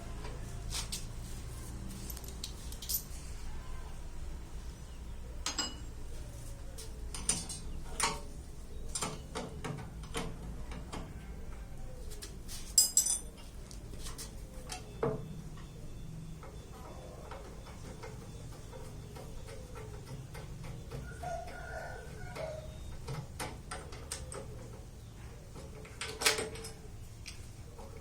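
Scattered metallic clinks and knocks, with a few louder clanks, as the casing and parts of a rice huller (selepan) are handled and opened up with tools.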